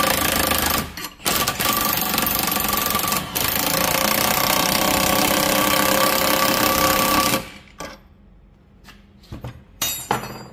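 Power impact wrench hammering on a bush-removal tool's threaded rod, pulling an old bush out of a VW T4 suspension arm; it runs steadily with two brief pauses and stops about seven and a half seconds in. A few metallic clinks follow near the end.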